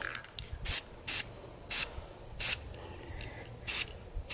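Aerosol spray-paint can spraying satin black paint in about six short bursts of hiss.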